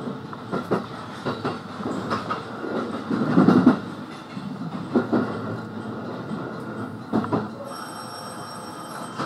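Electric train rolling slowly over station points, its wheels clacking over the rail joints and frogs at irregular intervals, with a louder rumble about three and a half seconds in. A high electronic ringing tone sounds for about a second and a half near the end.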